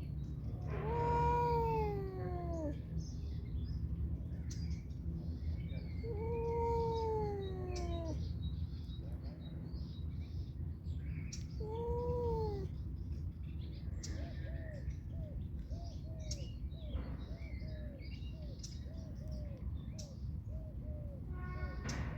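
Domestic cat meowing three times, each meow long and drawn out and falling in pitch, about five seconds apart. After that comes a run of short, softer calls repeating over a steady low hum.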